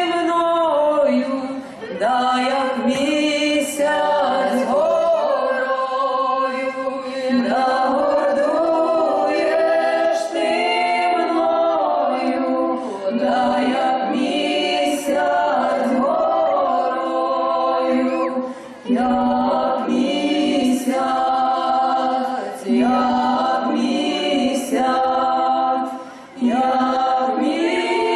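Women's folk choir singing unaccompanied, in long held phrases with brief breaks between them.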